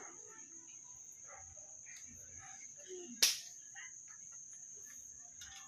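Steady high trill of crickets, with one sharp click from the air rifle's action a little over three seconds in as the rifle is handled.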